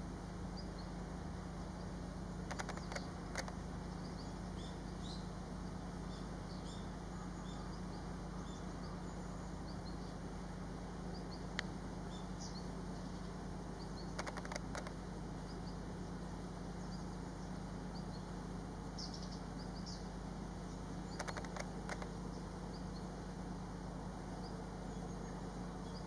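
Faint, scattered chirps of small birds over a steady low hum, broken four times by short clusters of sharp clicks.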